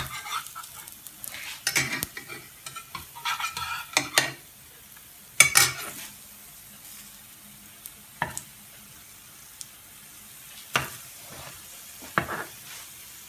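Metal slotted spatula scraping and tapping against a ceramic-coated frying pan as oladyi pancakes are nudged in hot oil, over a faint sizzle of frying. The scrapes and knocks come irregularly, the loudest about five and a half seconds in.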